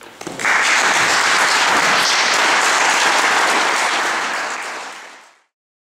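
Audience applauding, starting about half a second in, then fading out to silence near the end.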